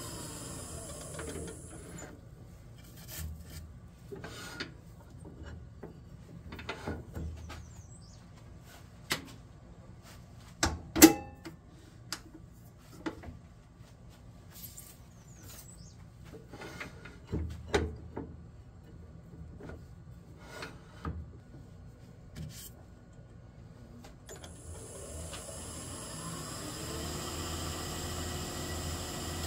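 Wood lathe motor winding down, then a stretch with the lathe stopped, holding scattered light knocks and clicks of handling, the sharpest about eleven seconds in. Near the end the lathe winds back up to speed.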